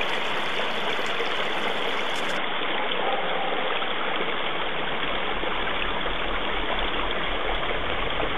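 Partly frozen mountain stream, water rushing steadily over rocks and under the ice.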